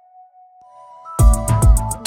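Background music with an electronic beat: a held tone, then about a second in, a run of heavy bass kicks and sharp hi-hat hits.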